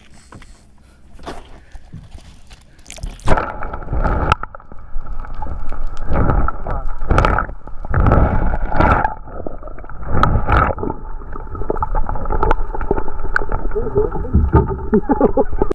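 Sound from a camera under water: muffled, irregular sloshing and gurgling of seawater moving against the camera housing. It starts abruptly about three seconds in, when the camera goes below the surface; before that there is only a faint airy rush.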